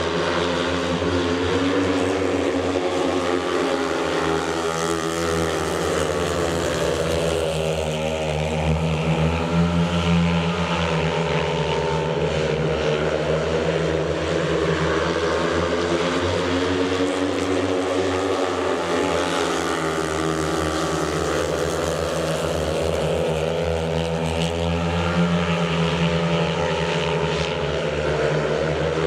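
Speedway bikes' 500 cc single-cylinder engines racing round the track, their note rising and falling as they go through the bends and down the straights.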